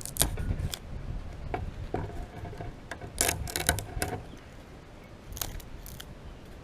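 Dry mullein stalk being cut and scraped at its end to dig out the pith: a series of sharp clicks and scrapes, busiest about three to four seconds in.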